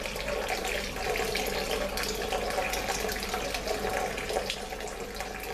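Kitchen tap running a thin, steady stream of water over a handful of cilantro, splashing into a bowl of water below.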